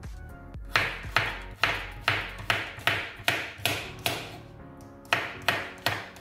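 Kitchen knife chopping a cucumber into chunks on a wooden cutting board: a run of about nine sharp knocks of the blade on the board, two to three a second, a short pause, then three or four more.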